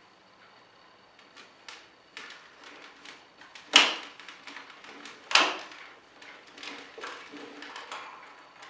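Plastic toy parts of the Clawzord figure being handled and clicked into place: scattered light clicks, with two sharp clacks about a second and a half apart near the middle.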